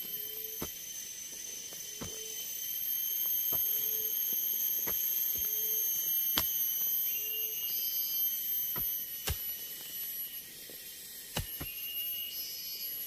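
Hand tool striking the ground or undergrowth about once every second and a half as forest ground is cleared, over a steady high-pitched drone of forest insects. During the first half a short low call repeats at about the same spacing.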